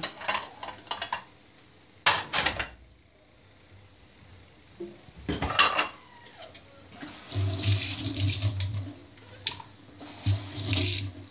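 A few clinks and knocks of plates and a knife on a stone counter, then a kitchen tap running into a steel sink from about seven seconds in as tomatoes are rinsed under it.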